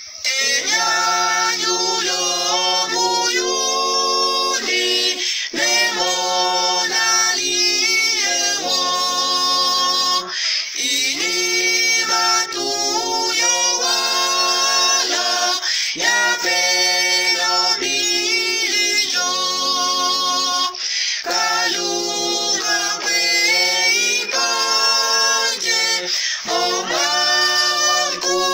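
One man's voice multitracked four times into unaccompanied four-part harmony, singing the first verse of a hymn. The phrases are slow and sustained, with short breaks about every five seconds.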